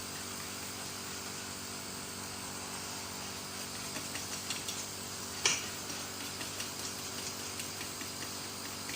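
Steady low mechanical hum, with light clicks and taps from about halfway in and one sharper knock about five and a half seconds in.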